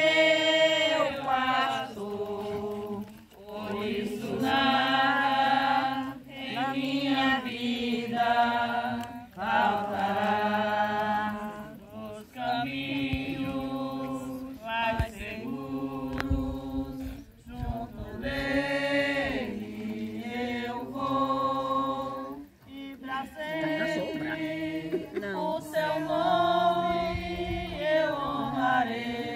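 Group of people singing a slow Portuguese hymn together, voices holding long notes and sliding between them.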